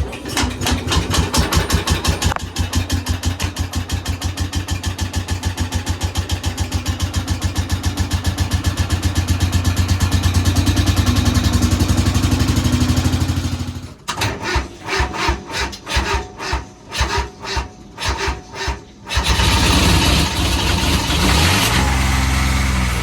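Old tractor engine running with a fast, even chugging beat. About fourteen seconds in it drops to slow, separate beats for a few seconds, then picks up to a steadier run that climbs in pitch near the end.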